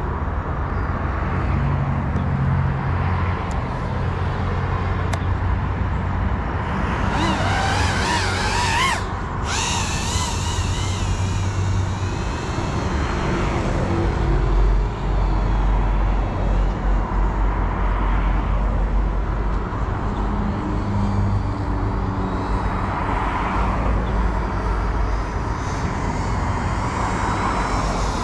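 GEPRC Cinelog 35 cinewhoop drone's motors and propellers whining, the pitch rising and falling as the throttle changes, over a steady low rumble.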